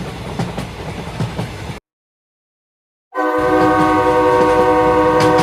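Toy train running with a rapid clatter of small clicks, then a sudden cut to silence. About three seconds in, a steady, loud multi-note train horn sounds and is held.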